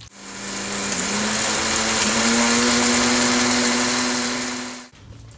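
Countertop blender running, blending dried red chiles with vinegar and spices into salsa. The motor's pitch rises slightly over the first couple of seconds, then holds steady until it is switched off near the end.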